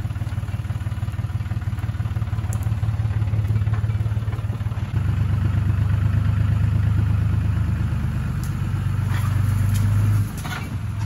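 John Deere 5300 tractor's diesel engine running steadily while the tractor drives its loader grapple into a shrub. The engine gets louder about halfway through and drops back just before the end. A few sharp cracks come near the end.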